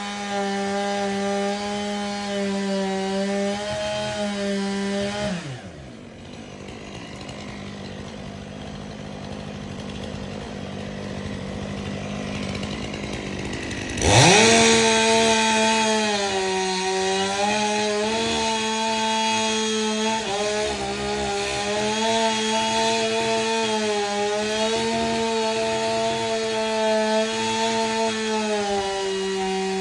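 Two-stroke chainsaw running at full throttle, cutting into canary palm wood, its pitch dipping slightly as it loads in the cut. About five seconds in the throttle is released and the engine falls to a quieter idle. About fourteen seconds in it revs sharply back up to full speed and keeps cutting.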